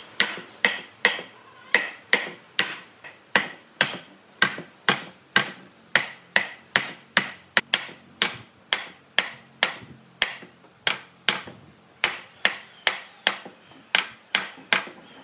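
Steady hand hammering on wood: sharp, evenly spaced blows, about two a second, each with a short ring.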